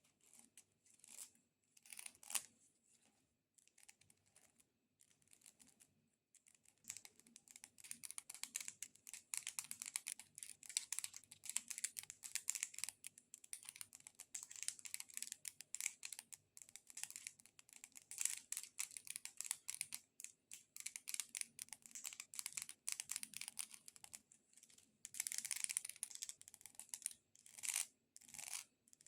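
Long fingernails tapping and scratching on a multicoloured corn cob. A few scattered taps come first, then a long run of fast, dense clicking and scratching, with a louder scratchy stretch near the end.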